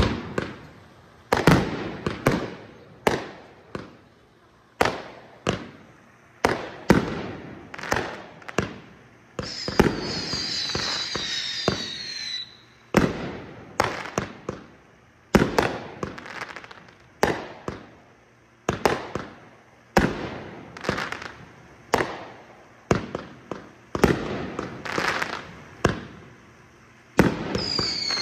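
Aerial fireworks going off in a steady series, a sharp bang roughly every second as shells launch and burst. About ten seconds in, a high whistle falling in pitch runs for about three seconds over the bangs, and it comes again near the end.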